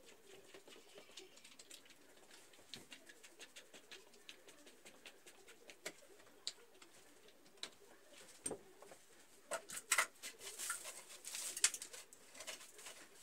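Faint small clicks and scrapes of a screwdriver working on a plastic wall socket, with a thump about three seconds in and again past the middle. Near the end comes a quick run of louder clicks and rattles.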